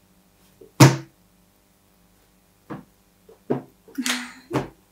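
Palms slapping a tabletop: one sharp slap about a second in, then four more, spaced about half a second to a second apart.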